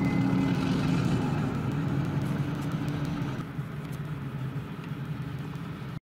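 An engine running steadily and growing gradually quieter.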